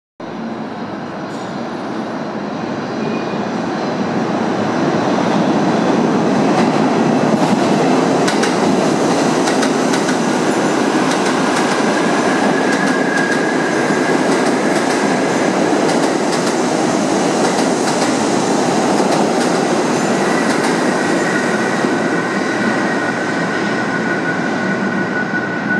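R68 subway train running through the station at speed on the express track without stopping. A steady rumble and clatter of wheels over rail joints builds over the first few seconds, then holds. A thin high wheel squeal joins in the second half.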